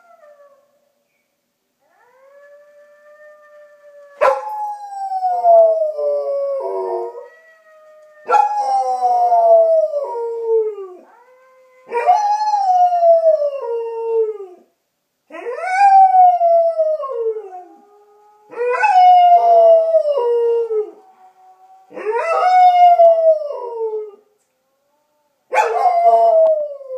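A German Shepherd–Collie mix dog howling like a wolf: seven long howls, starting about four seconds in and coming every three to four seconds, each starting high and sliding down in pitch.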